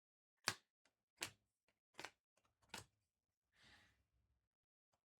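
Trading cards and packs being handled: four sharp clicks about a second apart, then a brief soft rustle.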